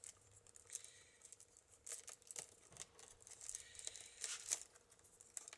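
Bird-cherry rod being woven through the wooden stakes of a basket: scattered faint crackles and rustles of wood rubbing on wood. The rod is thick enough to bend the stakes as it goes through.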